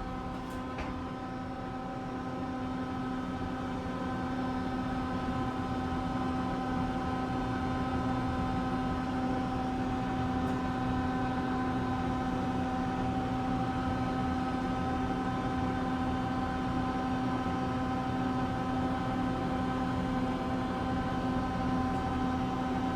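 Ride in an Otis hydraulic elevator car: a steady mechanical hum with several held tones, growing a little louder over the first few seconds.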